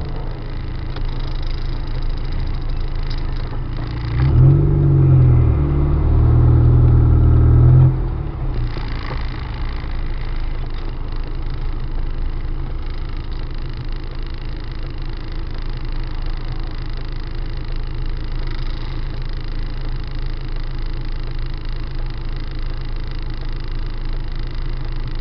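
A car driving, with steady low running noise. About four seconds in a louder low-pitched hum rises, holds for about four seconds and then cuts off sharply.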